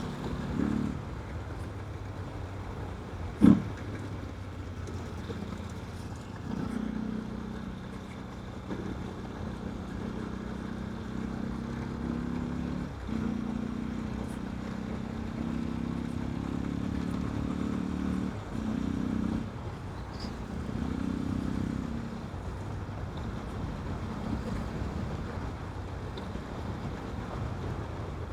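Yamaha Fazer 250's single-cylinder four-stroke engine running with its air filter removed, its note swelling and easing several times with the throttle. A single sharp knock sounds about three and a half seconds in.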